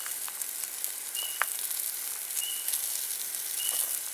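Burgers and hot dogs sizzling on the grate of a Napoleon Travel Q portable gas grill, a steady hiss, with a sharp click about a second and a half in. A short high chirp repeats about once a second in the background.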